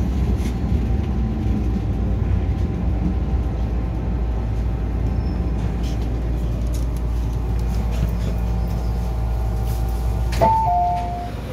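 MTR M-Train electric metro train running in along the platform, a steady low rumble with a faint constant whine. Near the end a two-note chime sounds, high note then lower.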